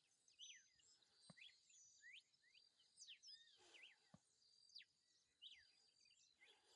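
Faint birdsong from several birds: many quick chirps and downward-sweeping whistles overlapping, with a thin steady high tone underneath.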